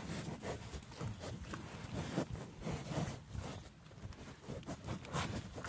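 Irregular close-up sniffing and snuffling from an English bulldog and cows nuzzling each other nose to nose.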